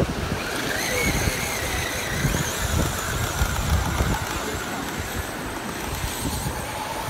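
Electric motor of a radio-controlled monster truck whining as it drives through shallow surf, its pitch rising and falling with the throttle. Wind rumbles on the microphone over a steady hiss of surf.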